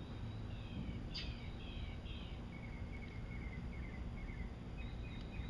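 A songbird chirping in several short series of quick, falling high notes, faint over a low steady outdoor background noise.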